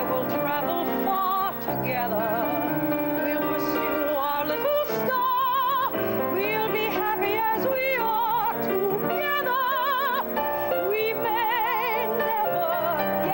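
A woman's soprano voice singing long held notes with a wide vibrato, accompanied by piano.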